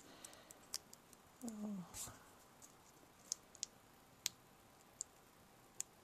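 Fingernails picking at the backing paper of foam tape on a small paper cutout: faint, scattered sharp clicks and ticks, about seven over a few seconds. A short hummed 'mm' about a second and a half in.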